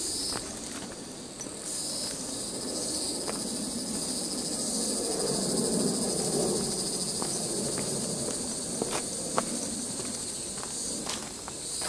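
A steady, high-pitched chorus of insects that grows stronger about two seconds in, with scattered taps and scuffs of footsteps on a dirt forest trail.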